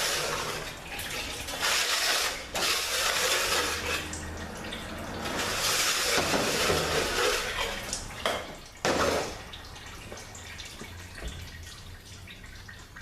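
Several long bursts of hissing spray, each lasting one to three seconds, followed by quieter small clicks and knocks near the end.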